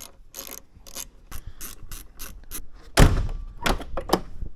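Truck rear door latch clicking repeatedly as it is worked, then the door shut with a loud thunk about three seconds in, followed by a few more latch clicks. The latch has just been repaired and is being tested.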